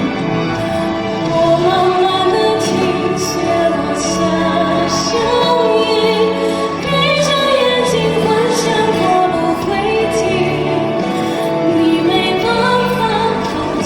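A woman singing a slow Chinese ballad solo over instrumental accompaniment, holding long notes with vibrato.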